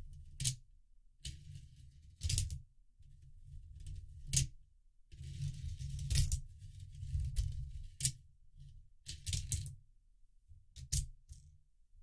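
Coins fed one at a time through a 3D-printed plastic coin sorter, rolling down its ramp with a low rattle and dropping into the sorting slots with sharp clinks. The clinks come about every two seconds, with a quick run of several near the end.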